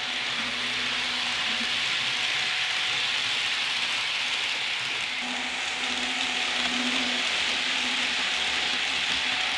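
Model trains running on layout track: a steady rolling hiss of metal wheels on rail, with a faint low hum that comes and goes.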